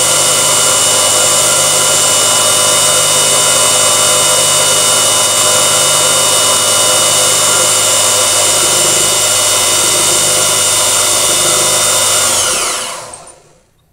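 High-RPM brushed motor belt-driving a home-built generator, running steadily with a loud whine while the generator charges a battery at about 7 amps per phase. About twelve and a half seconds in it is switched off and spins down, its pitch falling quickly to a stop.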